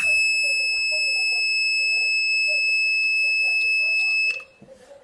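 A DIY IR-sensor fire alarm circuit's buzzer sounds one steady, high-pitched tone for about four seconds, then cuts off suddenly. A few sharp clicks come just before it stops.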